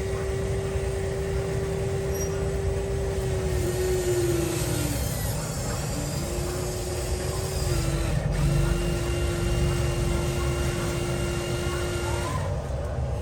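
Electric motors of a 1:14 scale RC excavator or dump truck whining at a steady pitch in about three spells over a low rumble, cutting out between moves.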